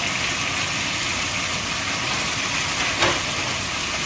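Spicy stir-fried pork and onions in gochugaru sauce sizzling steadily in a hot frying pan, with a brief louder sound about three seconds in.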